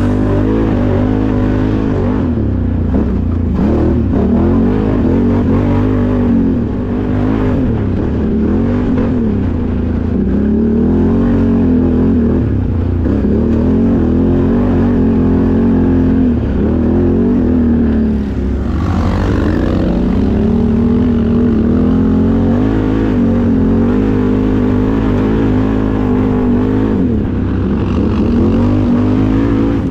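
The Can-Am Outlander XMR 1000R's 976cc Rotax V-twin engine running under load, its pitch rising and falling again and again with the throttle.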